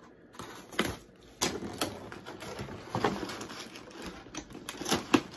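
A Playmobil Mystery Machine toy box being opened and its contents handled: irregular scrapes, knocks and rustles of cardboard and loose plastic.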